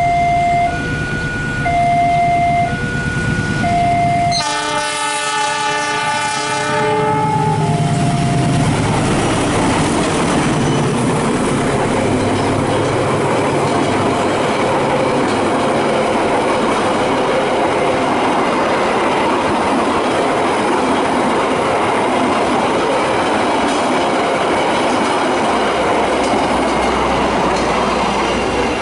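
An electronic warning signal alternating between two tones, like a level-crossing alarm, for about four seconds. Then an Indonesian diesel locomotive's horn sounds for about two and a half seconds, and an express passenger train passes close by with a steady rush and clatter of wheels on rail for the rest.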